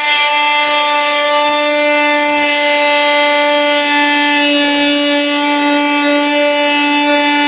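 Power saw running steadily, undercutting a wooden door jamb at a marked height so vinyl plank flooring and its underlayment can slide beneath it; a steady, even whine.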